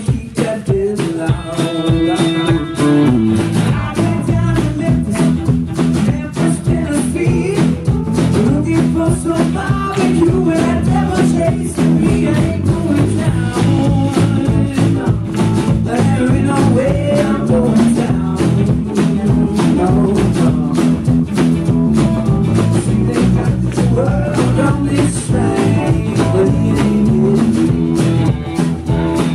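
A live rock band playing: a male singer with acoustic guitar, backed by electric bass and a drum kit.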